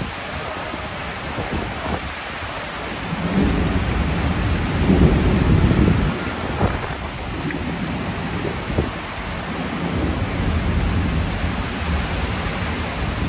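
Heavy downpour of rain pouring steadily in a thunderstorm. A low rumble of thunder swells about three seconds in and fades a few seconds later.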